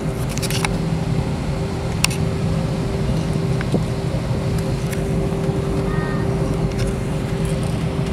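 Cabin noise inside an airliner taxiing: the jet engines running at taxi power as a steady low hum with a held whine over it, and a few light clicks.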